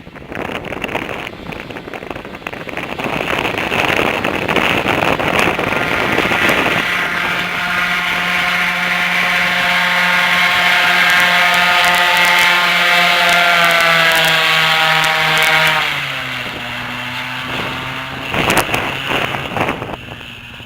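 Airboat's engine and air propeller running hard, with wind rushing on the microphone over the first several seconds. The engine tone holds steady, then drops to a lower pitch about 16 s in as the throttle comes back.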